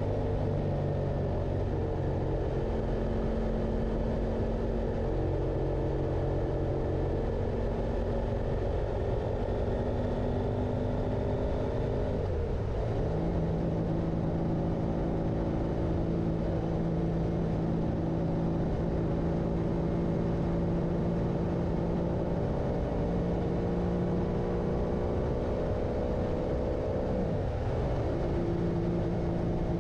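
Motorcycle engine running steadily while riding, with its note changing about twelve seconds in and dipping and picking up again near the end, over a low rumble.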